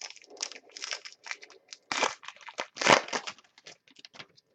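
Plastic trading-card pack wrapper being crinkled and torn open by hand: a run of short crackling rustles, loudest about two and three seconds in.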